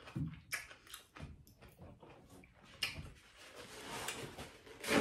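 Wet, crunchy chewing of fresh cucumber close to the microphone: a string of short crunches and mouth clicks. Near the end a paper towel rustles loudly as it is handled and unfolded.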